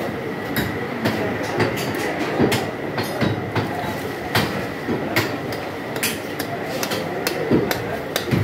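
Busy meat-market din with frequent, irregular sharp knocks of cleavers chopping goat meat and bone, about one or two a second, over a steady background of noise and distant voices.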